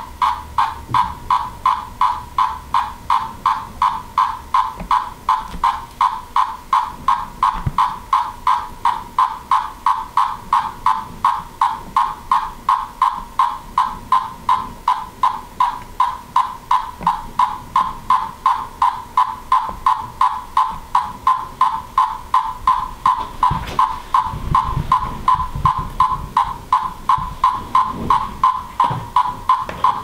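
Male Magicicada tredecim periodical cicada giving his staccato stage 3 courtship call while coupling with a female: short buzzy pulses at a steady pitch, about three a second.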